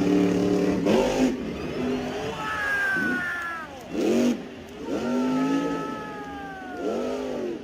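Cartoon vehicle engine sound effects revving several times, each rev rising then falling in pitch, with thin falling whines above.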